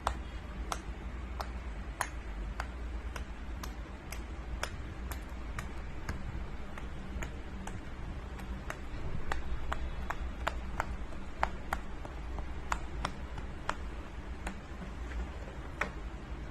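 Silicone pop it fidget toy having its bubbles pressed in one after another: a string of short clicking pops, about two a second.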